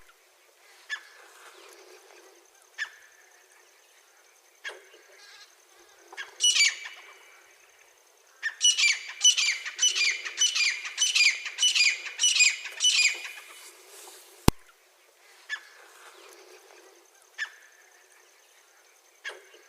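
Francolin (teetar) calling: a single harsh call about six seconds in, then a fast run of about nine loud repeated notes from about eight and a half to thirteen and a half seconds. Fainter short notes and a sharp click fall in the quieter stretches.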